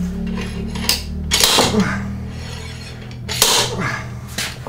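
Steel hand tools clanking and knocking against a Jeep NSG370 six-speed transmission's rear housing as a stuck bearing is worked out of its bore: a handful of separate sharp metal clanks, the loudest about three and a half seconds in, over a steady low hum.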